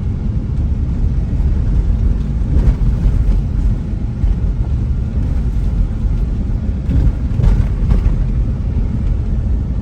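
Car driving along a road, a steady low rumble of engine and road noise heard from inside the cabin.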